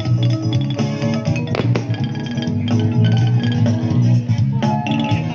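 Music playing at a steady level, with a strong low bass line.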